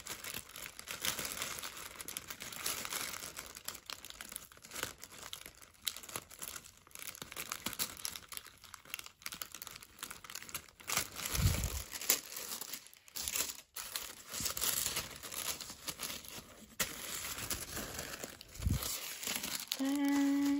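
Tissue paper crinkling and rustling as a sticker seal is peeled off it and the wrapping is folded open, with many small crackles and two soft low thumps.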